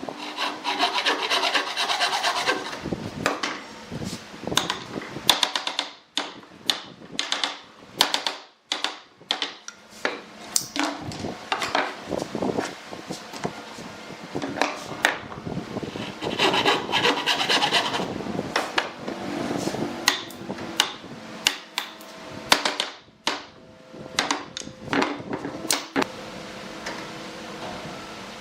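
Hand tool working pallet wood: two runs of quick scraping strokes, with many sharp separate strikes and scrapes between and after them.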